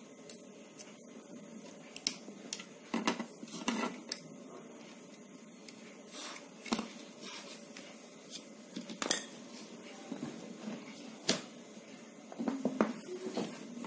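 Scattered light clicks and taps of a soldering iron, wire leads and the plastic hot-air-gun housing being handled while the switch leads are desoldered, a dozen or so irregular knocks over a faint steady background.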